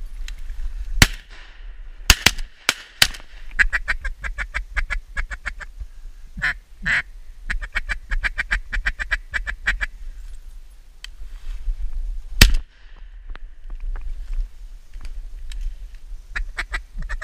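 Blown duck call worked in two long runs of rapid quacks and chuckles to ducks circling over decoys. A few loud sharp bangs cut in about a second in, around two to three seconds in, and once more past the middle.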